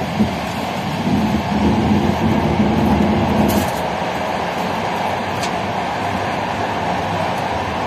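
TLK passenger train running along the track, heard from inside the carriage: a steady rolling rumble and rail noise. It grows louder, with a low hum, from about one second in to about three and a half seconds in.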